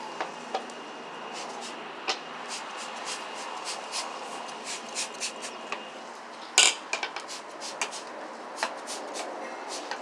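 Trigger spray bottle squirting and a seatbelt with its metal buckle being rubbed and knocked against a car door: an irregular string of short, sharp clicks and clinks over a steady hiss, with one louder knock about six and a half seconds in.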